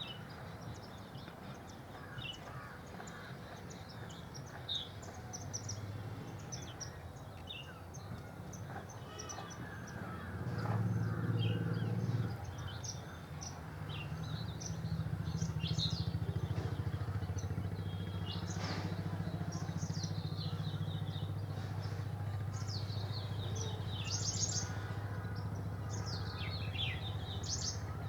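Many small birds chirping and trilling in quick, scattered calls, over a low steady rumble that grows louder about ten seconds in.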